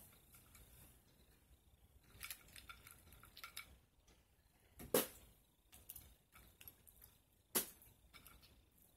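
Boiled crawfish being pulled apart by hand over a plate: scattered small cracks and clicks of shell, with two louder sharp clicks about five seconds in and again about two and a half seconds later.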